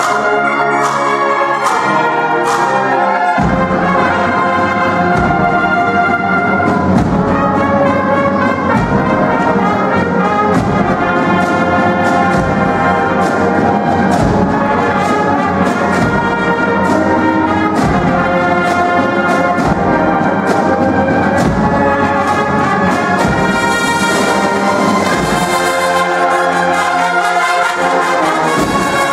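Cofradía brass-and-percussion band (agrupación musical) playing a march: trumpets, trombones and other brass over a regular low drum beat that comes in about three and a half seconds in and drops out near the end.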